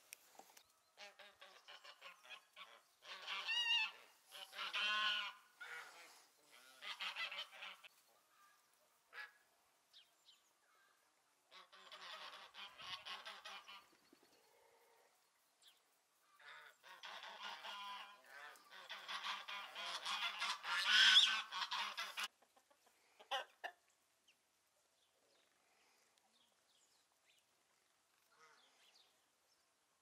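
Domestic geese honking in bouts of rapid, repeated calls. There is a long bout near the start, a shorter one in the middle, and another long one about two-thirds through, which is the loudest.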